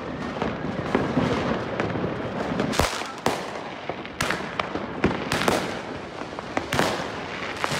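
Fireworks and firecrackers going off: about seven sharp bangs at irregular intervals over a continuous crackling.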